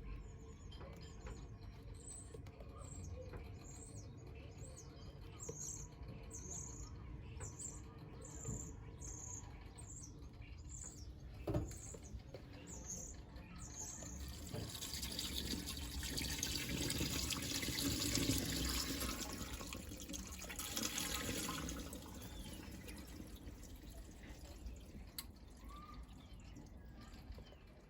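Washing machine mid-cycle: a series of short high chirps about every half second, then a rush of water swelling for several seconds about halfway through and fading away.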